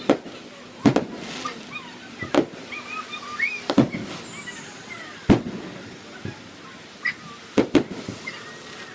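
Aerial firework shells bursting in a series of sharp booms, about nine of them at irregular spacing, some louder and some fainter.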